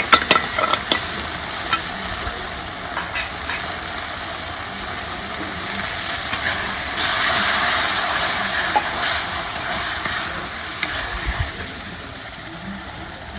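Spices frying in hot oil in a pan while being stirred with a spatula. The spatula clicks and scrapes against the pan in the first second or so, and the sizzle grows louder about halfway through.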